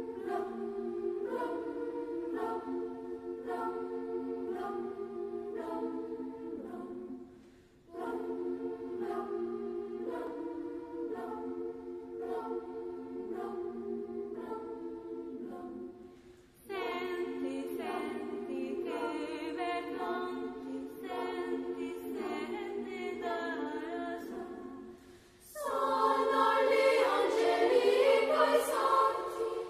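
A choir singing in long phrases, with brief pauses between them; the last phrase, about 26 seconds in, is louder and fuller.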